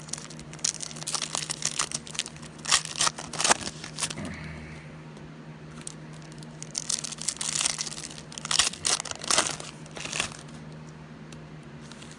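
Trading card pack wrappers being torn open and crinkled by hand, in two spells of crackling, the first about half a second in and the second about six and a half seconds in. A steady low hum runs underneath.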